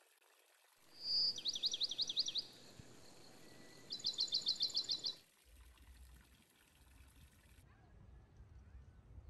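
Bird singing two fast, high trilled phrases. The first, about a second in, opens on a short whistle and runs into a quick series of falling notes. The second, about four seconds in, is a rapid run of evenly repeated high notes.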